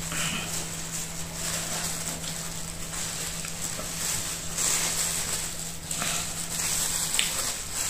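Thin plastic bag crinkling and rustling as a lump of oat fufu is squeezed and pinched off by hand, with louder crackles twice, about halfway and near the end. A low steady hum runs underneath and stops shortly before the end.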